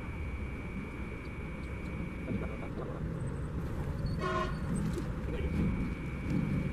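A high-speed inspection train of the CR400AF type sounds one short horn toot about four seconds in, over the low rumble of the train rolling slowly along the track.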